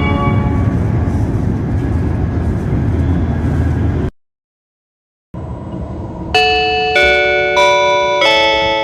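Japanese train in-car chime: four bell-like notes about half a second apart, each ringing on and fading, over the rumble of a moving train's interior. This is the kind of chime that introduces an onboard announcement. Before it, the train-interior rumble stops suddenly for about a second.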